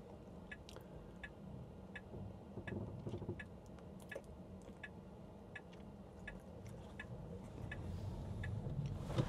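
Tesla Model 3 turn-signal indicator ticking through the cabin speakers, a steady, even click about three times every two seconds, over faint low road noise that grows slightly near the end.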